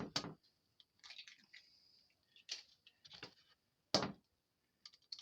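Eggs being cracked open by hand over a pan: two sharp cracks, one at the start and one about four seconds in, with softer wet squishing and crunching of shell in between.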